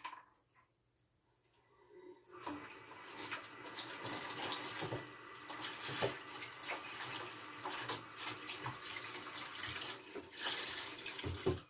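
Hands stirring and scooping through elderberries soaking in a bowl of water: uneven water sloshing with many small splashes and drips, starting about two seconds in.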